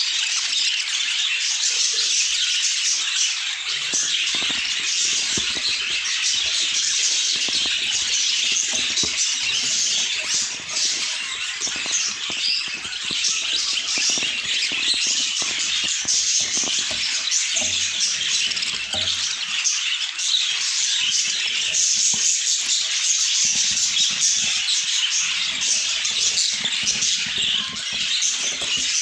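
Many budgerigars chattering and warbling together: a dense, continuous mass of chirps and squawks with no pause.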